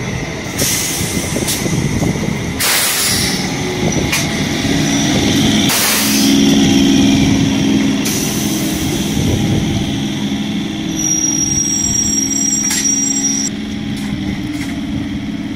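Electric multiple unit local train passing close by: its wheels rumble and clack irregularly over the rail joints, with a steady hum from the coaches underneath. The sound drops quieter near the end.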